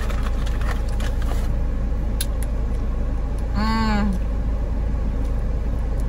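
Steady low rumble inside a car's cabin, with a few faint clicks and crinkles as a small ketchup packet is torn open with the teeth. A brief hummed 'mmm' from the eater a little past halfway.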